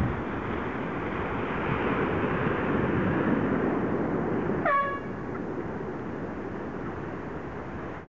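Wind buffeting the microphone over open water, with one short horn blast about halfway through: the race committee's finish horn sounding as a sailboat crosses the finish line. The sound cuts out abruptly near the end.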